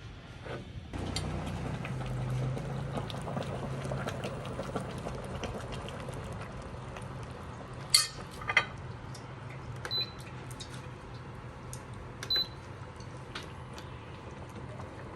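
Stingray hotpot broth bubbling at the boil, with a low hum underneath that starts about a second in. A few sharp clinks come around the middle, the loudest about halfway through.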